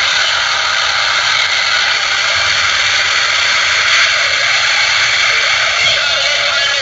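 Loud, steady static hiss with no tone, voice or siren in it.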